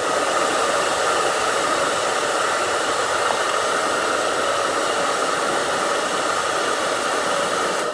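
Sound machine playing a steady white-noise hiss, switched on at the start and off at the end.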